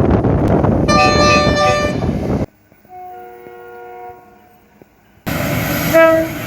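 Train horns in three short clips joined by abrupt cuts. First a chord of several notes sounds for about a second over the loud rumble of a train. Then a fainter, more distant horn chord sounds for just over a second, and last a brief loud horn blast over train noise near the end.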